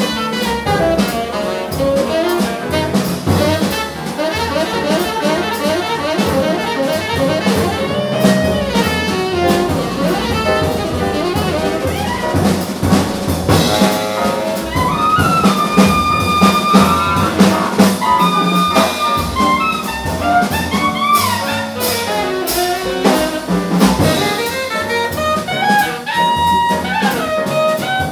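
Live jazz quartet: saxophone soloing over piano, upright bass and drum kit. The solo runs in fast flurries of notes for the first half, then turns to long held high notes.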